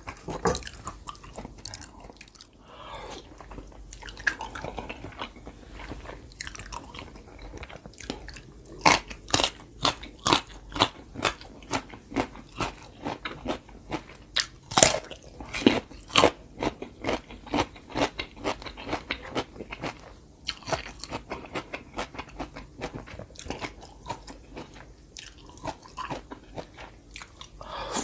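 Close-miked mouth sounds of a person biting and chewing food, a steady run of crisp crunches at about two a second, loudest through the middle.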